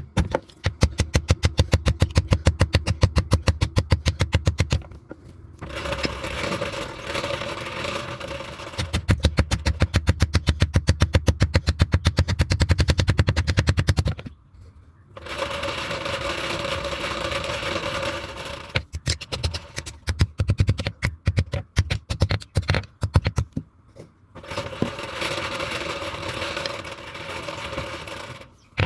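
Rapid, evenly spaced hammer blows on metal at a blacksmith's forge, coming in runs of a few seconds. Between the runs there are stretches of a steady whirring hiss with a hum.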